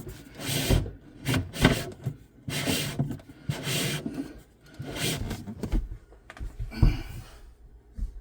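PEX pipe being pushed through a hole drilled in a wooden cabinet, scraping and rubbing against the wood in repeated strokes about once a second. The strokes thin out near the end.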